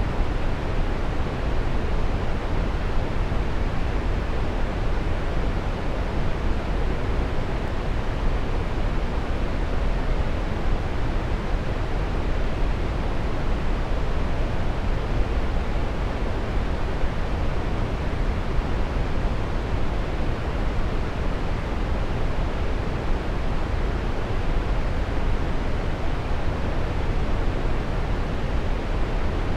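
Waterfall rushing: a steady, unbroken roar of falling water with most of its weight in the low range.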